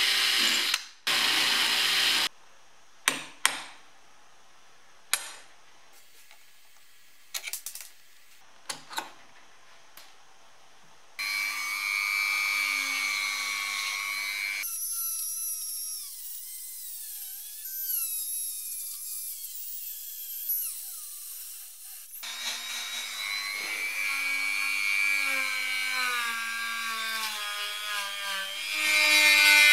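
A cordless drill runs in two short bursts, drilling out the rivets on a steel dashboard mount, followed by scattered clicks and light knocks. About eleven seconds in, a handheld rotary tool starts working the rusty steel mount and keeps up a high whine whose pitch wavers under load. It grows louder near the end.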